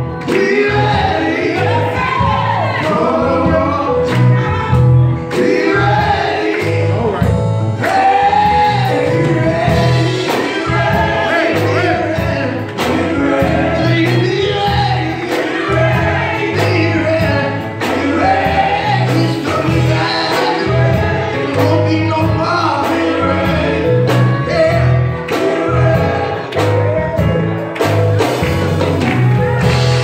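Live gospel praise song: several men singing into microphones over a drum kit and guitar, with a steady drum beat.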